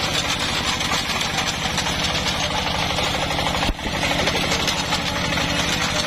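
Single-cylinder diesel engine of a Yanmar two-wheel power tiller running steadily with a fast even beat while pulling a potato digger, with the clatter of soil and potatoes over the digger's rod conveyor.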